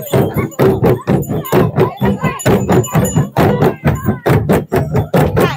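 Several traditional wooden barrel drums with hide heads, beaten with sticks in a steady, fast rhythm of several strokes a second, with voices calling over the beat.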